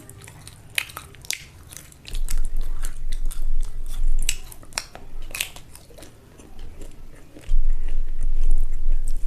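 Close-miked chewing and mouth sounds of someone eating rice and egg curry: scattered sharp wet clicks, with louder low rumbling stretches about two seconds in and again near the end.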